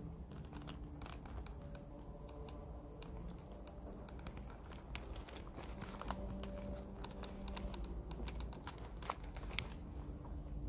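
Scattered light clicks and taps at an irregular pace, over a low steady room hum.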